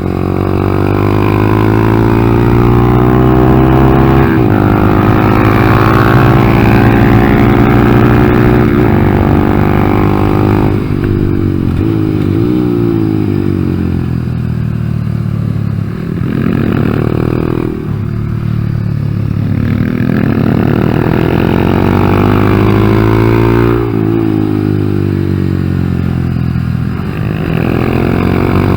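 2014 Honda Grom's single-cylinder engine running hard around a track, its revs repeatedly climbing and dropping through shifts and corners. It bogs when the throttle is opened, because the ECU has not been reset after an engine swap.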